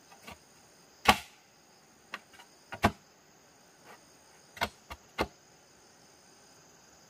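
Sharp knocks, about half a dozen at irregular spacing, the loudest about a second in and near three seconds, stopping after about five seconds. A steady high insect trill runs underneath.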